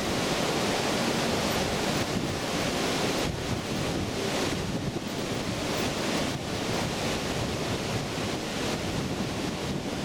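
Niagara River rapids above the American Falls rushing over rocks: a steady, even rush of white water.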